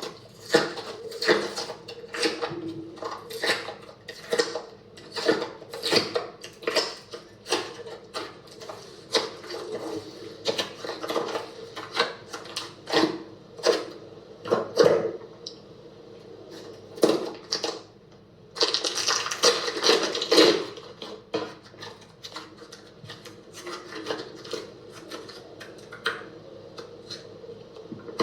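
Slime being squeezed and poked by hand, giving irregular clicks and pops, about one or two a second, with a longer stretch of crackling about two-thirds of the way through.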